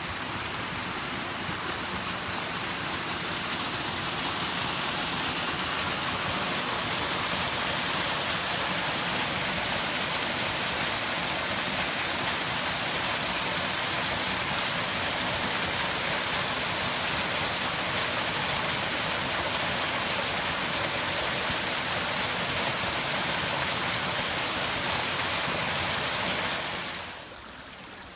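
Small forest waterfall splashing onto rocks: a steady rush of falling water that grows louder over the first few seconds. It drops sharply about a second before the end to the quieter run of a shallow stream.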